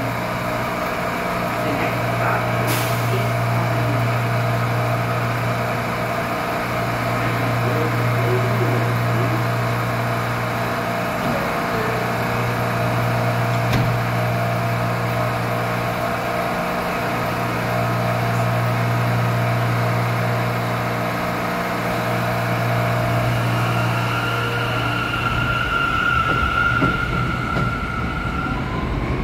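New York City Subway J train standing in the station with a low hum from its equipment that cuts out briefly about every five seconds. Near the end it pulls out, and a steady whine turns into a rising whine as its motors accelerate it away.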